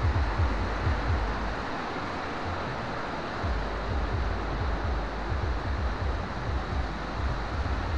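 Steady rush of a rocky mountain stream, with irregular low thumps and buffeting on the microphone.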